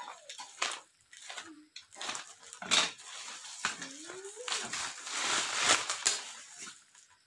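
Plastic packaging wrap crinkling and tearing as a tightly wrapped parcel is unwrapped by hand, with sharp rips and rustles that come and go. About four seconds in, a short rising whine from an animal sounds in the background.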